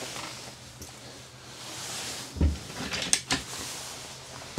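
Wooden galley cupboard door being shut with a thump about halfway through, followed by two sharp clicks.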